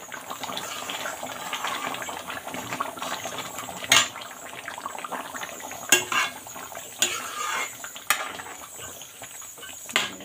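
Metal ladle stirring a watery gravy in an aluminium kadai, with a wet scraping swish at first. Then about five sharp clanks of the ladle against the pan, from about four seconds in.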